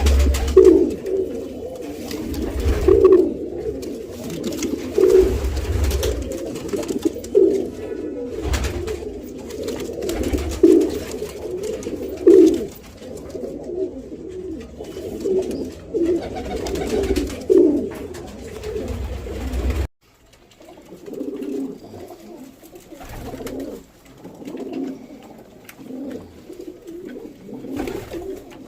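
Pigeons cooing, a steady string of repeated low coos with low rumbling underneath. About twenty seconds in the sound cuts abruptly to a quieter stretch of cooing.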